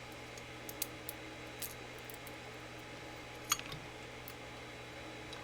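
A few faint, sharp clicks of small metal lock parts being handled, the pins and pieces of a gutted Mul-T-Lock cylinder, over a steady low hum.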